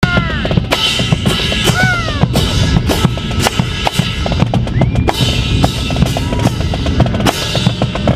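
Marine Corps marching band's drum line playing a marching cadence: rapid snare and bass drum hits with cymbal crashes. A couple of short whistle blasts, likely from the drum major, come at the start and about two seconds in.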